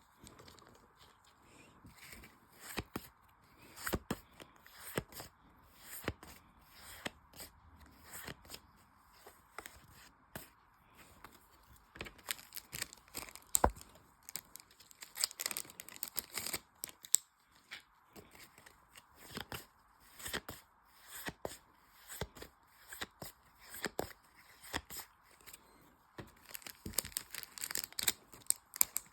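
Pokémon card booster packs being opened and handled: foil wrappers tearing and crinkling, and cards rustling and snapping. It comes as an irregular string of short, sharp sounds, with one crisp snap about halfway through.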